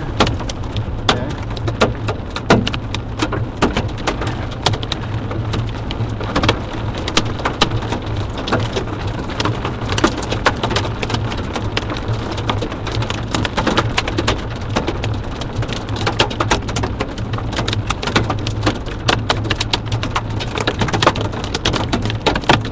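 Hailstones and rain striking the roof and hood of a moving vehicle: a dense, irregular patter of sharp clicks and knocks over a steady low road hum.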